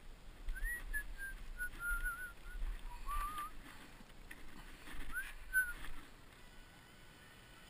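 Whistled notes that slide and waver, a descending run of short notes then a second brief phrase a couple of seconds later, over a low wind rumble on the microphone and a few sharp handling clicks.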